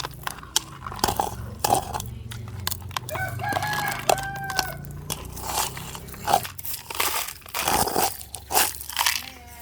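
A rooster crows once, about three seconds in, in one drawn-out call. Around it come many short clicks and crunches.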